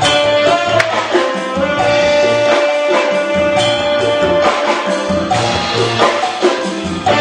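Saxophone playing a melody live over a keyboard and percussion accompaniment, holding one long note through the middle for about three seconds before moving on.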